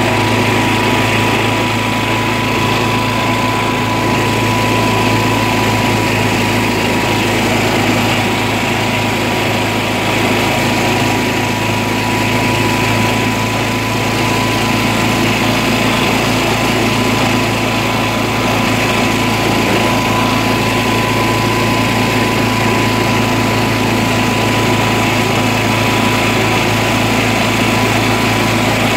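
John Deere lawn tractor's small engine running steadily as the tractor drives along, with a thin, steady high whine over the engine hum.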